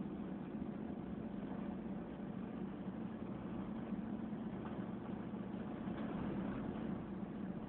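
1984 Ford F-250's 6.9-litre IDI diesel V8 running steadily at road speed, heard from inside the cab, with tyre noise from a chip-sealed road surface.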